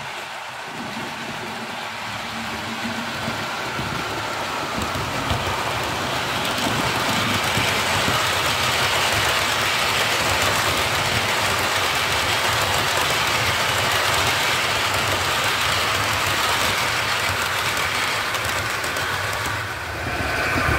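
Model Midland Pullman HST train running along the layout track, a steady running noise that grows louder over the first several seconds as the train approaches and then holds steady as the long rake passes, with a brief dip near the end.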